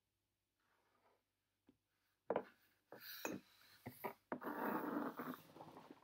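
A plastic squeeze tube of Svennes caviar spread being handled and slid across a tabletop: a few sharp knocks, then a rubbing scrape lasting about a second.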